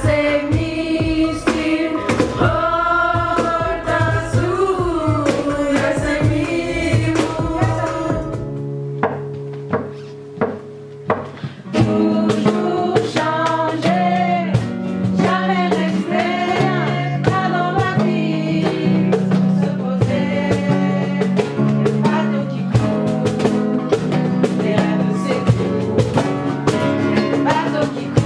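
Young women singing a melody over musical backing for about eight seconds. After a short quieter break with a few sharp clicks, a rhythmic song starts with a stepping bass line, steady percussion, acoustic guitar and singing.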